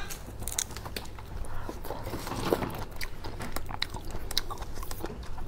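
A person chewing a mouthful of food close to a clip-on microphone, a string of small irregular mouth clicks and crunches.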